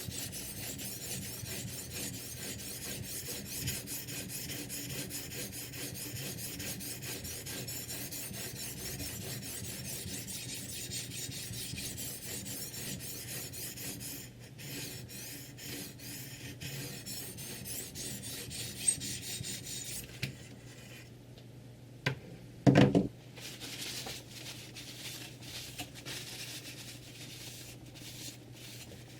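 A sharpening stone on a guided knife sharpener being stroked along a kitchen knife's steel edge, a steady scraping rasp. The scraping thins out about halfway through. A few knocks come near the end, the loudest a short low knock.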